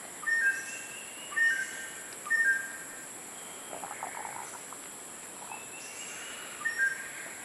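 A rainforest bird calling with short whistled two-note phrases, three in quick succession about a second apart, then twice more near the end, over a steady high-pitched hiss.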